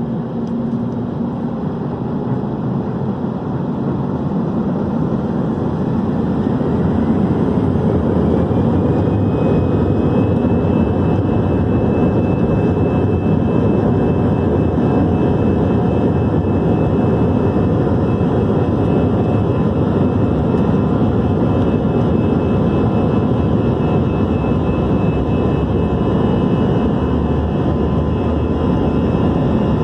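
Airbus A321-211's twin CFM56-5B jet engines spooling up to takeoff thrust, heard inside the passenger cabin: a whine rises in pitch and the noise grows over the first several seconds, then holds as a steady loud roar with rumble, typical of the takeoff roll.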